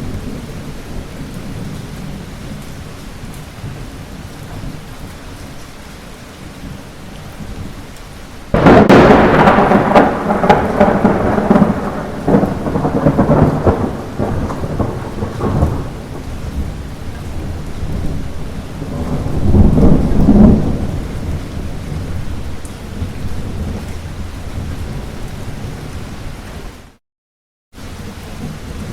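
Steady light rain, broken about a third of the way in by a sudden loud thunderclap that rumbles on for several seconds, with a second roll of thunder swelling about two-thirds of the way through. Near the end the sound cuts out completely for under a second, then the rain resumes.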